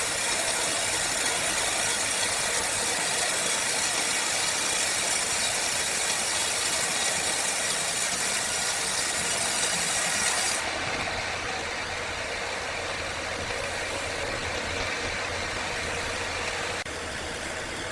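Sawmill machinery running steadily, an engine-driven hum under a dense hissing noise. About ten seconds in the hiss drops away abruptly, leaving the lower machine hum.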